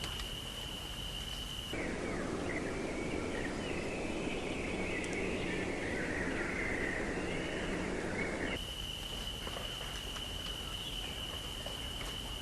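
Outdoor ambience in two cut segments. A steady, high, unbroken insect trill runs at the start and again from about two-thirds of the way in. Between them is a noisier stretch with wavering, bird-like chirps.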